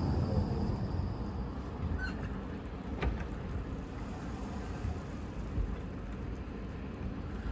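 Tram rolling in along the platform and slowing to a stop, its low running rumble fading away, with two short clicks about two and three seconds in.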